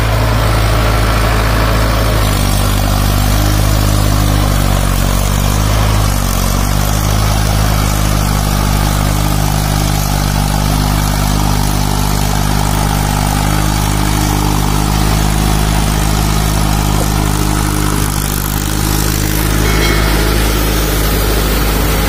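Mahindra Arjun 555 DI tractor's four-cylinder diesel engine running under load as the tractor works through deep paddy-field mud. Its pitch steps up and down a few times, about two seconds in, around six seconds and again near the end.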